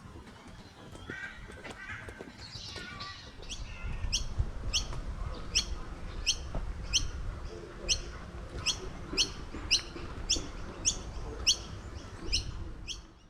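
A bird calling a short, sharp chirp that sweeps downward in pitch, repeated nearly twice a second, starting a few seconds in, over a low rumble and fainter forest calls.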